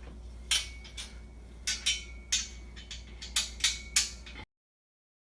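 Sharp, irregular metal clicks and clinks, some with a brief ring, as an Allen wrench turns a bolt into a steel clothes-rack frame. The sound cuts off abruptly about four and a half seconds in.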